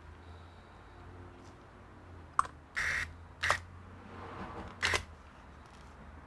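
A couple of sharp clicks and three short bursts of hiss, each under half a second, between about two and five seconds in, over a steady low hum.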